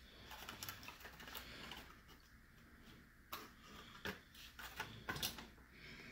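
Faint handling noise: light plastic and metal clicks and taps at irregular spacing, about half a dozen in all, with several close together about five seconds in.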